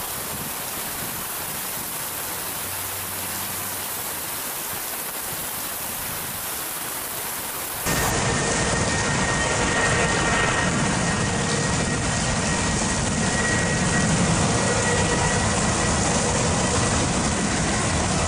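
Heavy rain falling steadily. About eight seconds in, the sound cuts to louder rain with the steady whine of a jet airliner's engines running through it.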